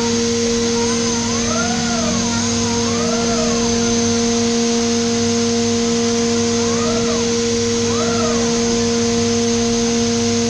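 Haas five-axis CNC mill running a back-chamfering cut with a 3 mm lollipop cutter: a steady spindle whine over a constant hiss, with whines that rise and fall in pitch several times as the axes move, pausing for a few seconds midway.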